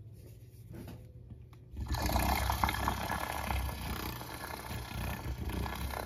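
Handheld battery milk frother switched on about two seconds in, its small motor buzzing steadily as the spinning whisk froths milk in a glass mug.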